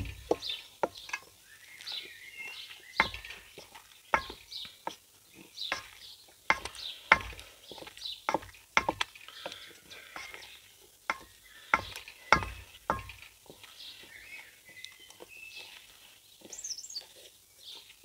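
Wooden spoon stirring a wet bread dough in a stainless steel mixing bowl: irregular knocks and scrapes of the spoon against the bowl, one or two a second, with the soft squelch of the dough.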